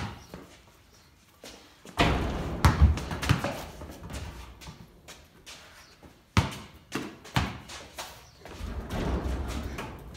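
Basketball play inside a corrugated-iron shed: a basketball thumping on the floor and banging against the hoop and sheet-metal walls. There is a sharp thump at the start, then a heavy bang about two seconds in that rings on for a couple of seconds, followed by scattered thumps and another rumbling stretch near the end.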